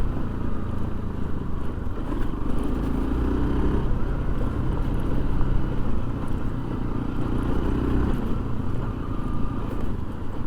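Motorcycle engine running under way on a dirt track, its note shifting a few times with throttle, over wind noise on a helmet-mounted microphone.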